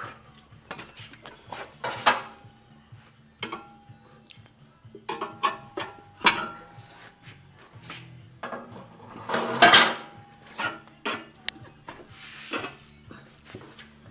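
Metal tools clanking and knocking against a motorcycle wheel and tire machine while a new tire is levered onto the rim. The knocks come irregularly, some ringing briefly, with the loudest clank about two-thirds of the way through.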